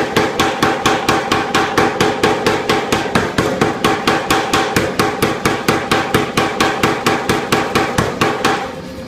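A 25 kg air power hammer forging a red-hot metal bar, striking it about four times a second with a ringing metallic tone. The blows stop about eight and a half seconds in, leaving a steady machine hum.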